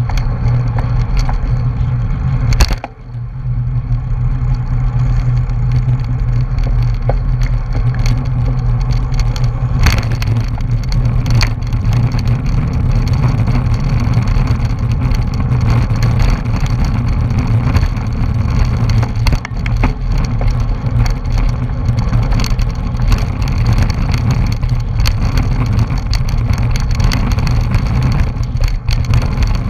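Wind buffeting the microphone of an action camera on a racing bicycle moving at speed in a pack of riders, a steady rumble mixed with tyre and road noise. A sharp knock comes just before a brief dip about three seconds in, and another click about ten seconds in.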